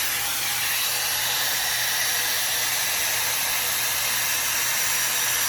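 High-speed hair dryer brush (a 5-in-1 multi-styler with its round brush attachment) running steadily: an even rush of air with a thin high whine from the motor.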